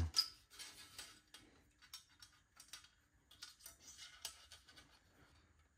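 Faint, scattered small metal clicks and scrapes as a coil spring is hooked onto a Vendo 81 Coke machine's sheet-metal bottle shelf.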